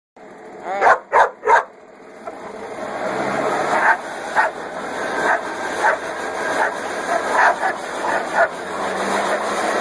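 A dog barks three times in quick succession. A leaf blower then starts and runs steadily, growing louder, while the dog barks repeatedly at its stream of air.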